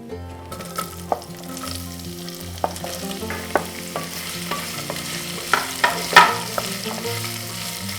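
Chopped onions frying in hot groundnut oil in a pressure cooker, sizzling steadily as a spoon stirs them, with a few sharp scrapes and knocks of the spoon against the pot, the loudest about six seconds in.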